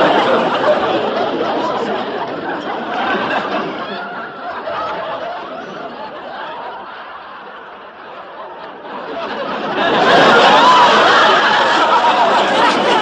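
A large crowd laughing together. The laughter dies down to its quietest about eight seconds in, then bursts back up to full strength around ten seconds.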